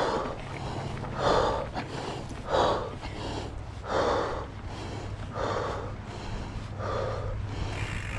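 A mountain biker breathing hard from the effort of riding, with a heavy breath about every second and a half. A steady low rumble runs underneath.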